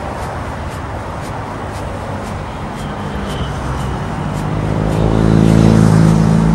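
Road traffic running steadily, with a large vehicle's engine growing louder through the second half and passing at its loudest near the end.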